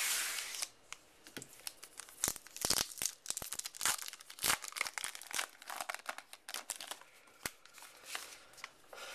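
A trading card pack wrapper being torn open and crinkled, with a short rip at the start followed by a run of sharp crackles and rustles as the wrapper is handled.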